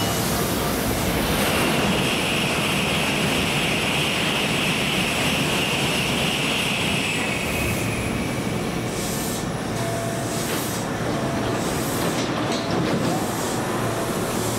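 Train passing close by: a steady rushing rumble, with a high squealing tone that rises about a second in and fades out about seven seconds in.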